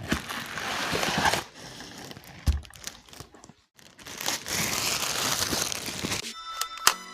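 Packaging of a boxed Bluetooth speaker being handled: crinkling and rustling with some tearing, in two spells with a brief pause between them. A few short tones sound near the end.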